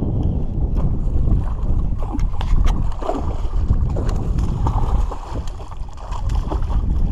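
Wind buffeting the microphone, the loudest sound, with irregular splashing from a hooked tararira thrashing at the surface during the middle and later part.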